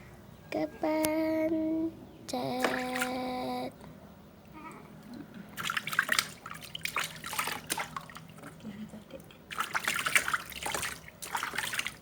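Two steady squeaky tones, each about a second long: something squeaky, likely a squeeze toy, being pressed twice, the second a little lower. Water splashes in patches over the last several seconds as the child is washed.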